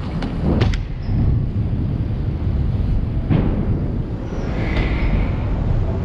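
BMX bike riding skatepark ramps: a steady low rumble of rolling tyres, with a couple of sharp knocks just after the start and a thump about three seconds in.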